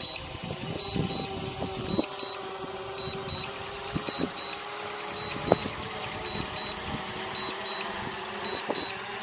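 DJI remote controller beeping during Return to Home: short high beeps repeating regularly, about twice a second. Under them, the faint steady hum of the DJI Air 2S's propellers overhead, with a few light handling knocks on the controller.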